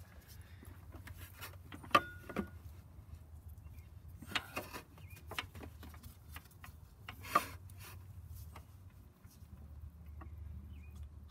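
Sporadic metallic clicks and knocks as the long AC compressor bolts and the compressor are worked into place by hand in a crowded engine bay; the sharpest clinks come about two seconds in and again about seven seconds in, one with a short metallic ring.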